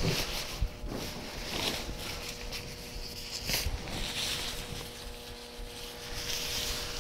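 Ripstop nylon fabric rustling and swishing in irregular swells as a sewn underquilt shell is pulled and turned right side out by hand, over a faint steady hum.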